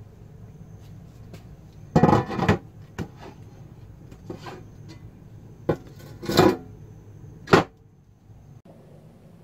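A large steel circular saw blade being set down on a tabletop with a clattering scrape about two seconds in, then a few shorter knocks and scrapes as it is shifted into place by hand. A low steady hum lies under it all.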